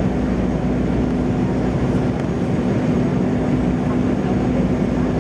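Steady cabin noise aboard an Embraer 195 airliner on approach to land: the rush of air and its two GE CF34-10E turbofan engines, with a steady low hum underneath.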